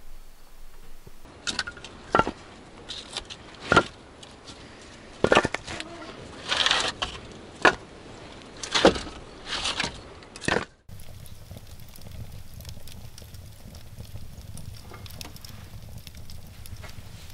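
Split firewood logs being pulled one by one off a stacked woodpile, knocking and scraping against each other in a string of sharp wooden knocks. About eleven seconds in, a wood fire crackles softly in a stove's firebox over a low steady hum.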